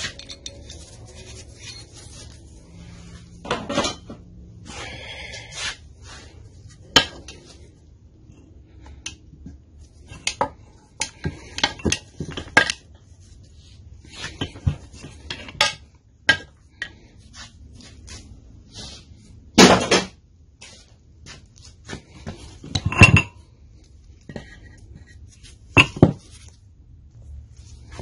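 Metal engine parts and hand tools clinking and clattering on a workbench as a small engine is taken apart, irregular sharp knocks and clinks with a few louder ones in the second half.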